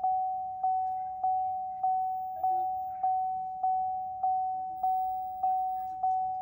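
Vauxhall Astra instrument-cluster warning chime ringing on repeat, a single ding struck about every 0.6 seconds and fading between strikes, while the dashboard shows the diesel particulate filter full warning.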